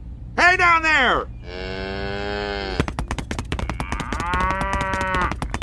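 Cows mooing three times: a short falling moo, then a longer steady one, then another about four seconds in. A fast run of sharp clicks starts about halfway through and carries on under the last moo.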